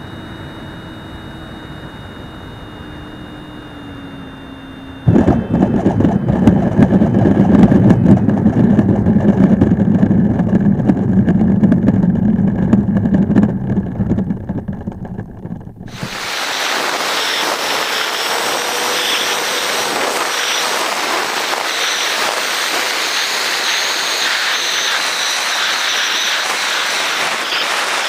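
Freewing L-39 model jet's electric ducted fan whining steadily in low flight, heard from its onboard camera; about five seconds in, a sudden loud rumbling clatter as the model meets the rough dirt ground and rolls across it, dying down as it slows. About sixteen seconds in this gives way to a steady rushing hiss of the model in flight.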